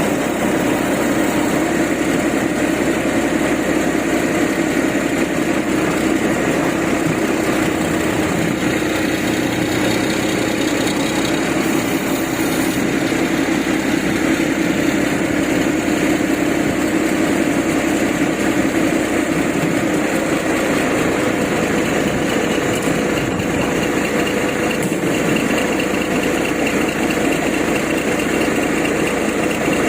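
A vehicle engine running steadily with an even hum, its tone shifting slightly about two-thirds of the way through.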